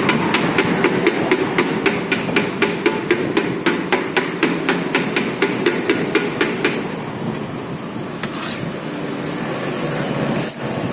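Rapid, even tapping on ceramic wall tile, about four to five knocks a second, typical of a tiler bedding tiles into adhesive. The tapping stops about seven seconds in, leaving scraping and rubbing with a few scattered clicks.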